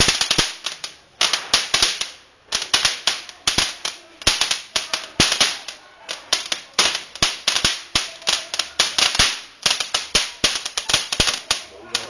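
Small handheld firework spraying sparks and crackling: a fast, irregular string of sharp pops, several a second, coming in clusters with short gaps.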